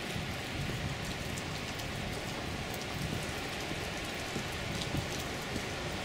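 Rain pattering steadily, a fine ticking of drops over an even hiss, with a low rumble underneath.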